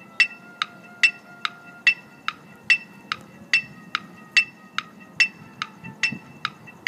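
Metronome clicking steadily at about 144 beats a minute, every other click louder, keeping time for a marching band's drill.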